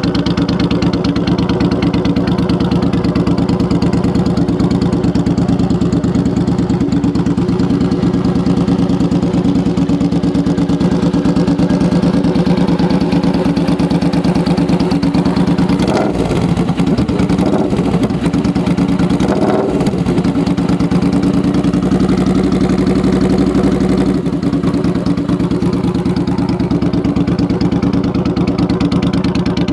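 Suzuki Boulevard C50's 805 cc V-twin idling through a non-baffled 2-into-1 race exhaust, with two quick throttle blips about halfway through before it settles back to idle.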